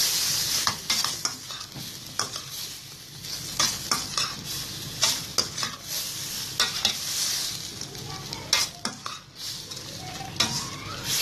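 Chicken pieces with onion and tomato sizzling in a stainless steel kadai while a metal spoon stirs them, scraping and clacking against the pan many times.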